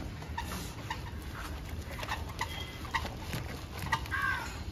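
Wet, squishy patter of hands massaging shampoo lather into a small dog's soaked long coat, with scattered short chirps.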